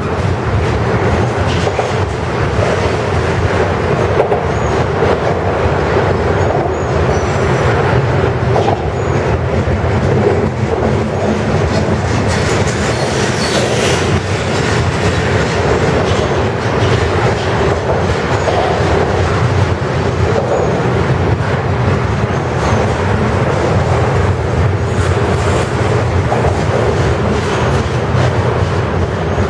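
Double-stack container well cars of a freight train rolling past, a steady loud rumble of steel wheels on rail with a continuous rapid clicking.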